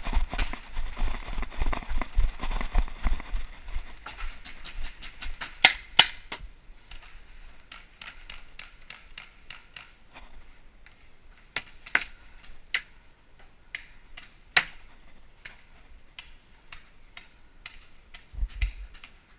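Paintball markers firing now and then: single sharp pops, a pair about a second in from the quieter stretch and a few more scattered later. For the first few seconds there is heavy thumping and rustling of a player moving in gear.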